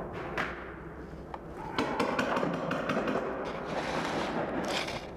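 Knocks and thuds at a large, heavy paintball riot shield held against the camera, thickening about two seconds in into a couple of seconds of dense rattling and scraping.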